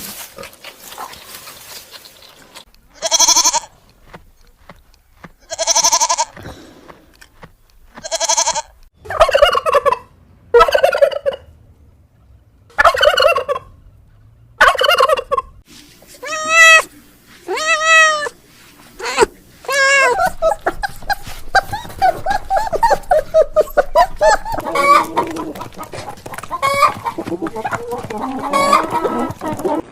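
Domestic chickens calling: about a dozen loud, separate calls, each under a second long, then a denser stretch of many shorter, overlapping calls in the last third.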